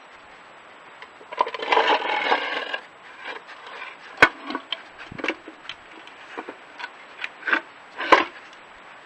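A badger nosing and shoving a small wooden feeder box across paving slabs: a scraping slide about a second and a half in, then a string of sharp wooden knocks, the loudest about four seconds in and near the end.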